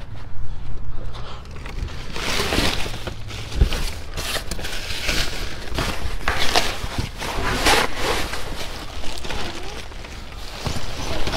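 Bags and salvaged goods being handled and shifted: irregular rustling and scraping, with one heavy thump about three and a half seconds in.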